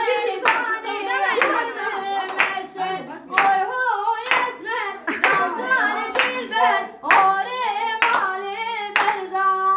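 Voices singing a song together with hand claps keeping time, about one clap a second.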